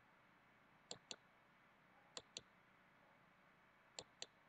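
Near silence broken by pairs of short, sharp clicks, three pairs about a second and a quarter apart.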